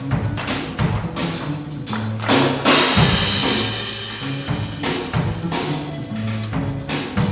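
Percussive music: quick, irregular drum-like hits over a repeating low bass line. About two and a half seconds in, a crash of bright high hiss swells and fades like a cymbal.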